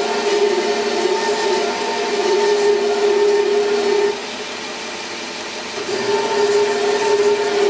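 Belt grinder running with a steel sword blade pressed against the abrasive belt: a steady grinding hiss over a humming tone. Roughly halfway through it eases off for about two seconds as the contact lightens, then comes back to full strength.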